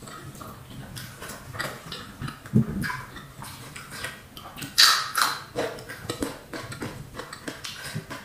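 Close-miked eating sounds: wet chewing and lip smacks of rice and fried tempe mendoan, with many small clicks. About five seconds in comes a loud, crisp crunch as a raw long bean is bitten off. A dull low knock sounds about two and a half seconds in.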